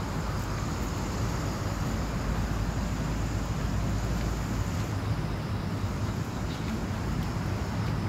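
Steady outdoor noise: wind rumbling on the phone's microphone, heaviest in the first five seconds, over a background hum of traffic.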